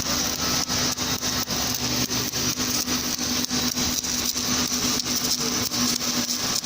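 Submerged arc welding in progress: a steady machine hum with frequent irregular crackles.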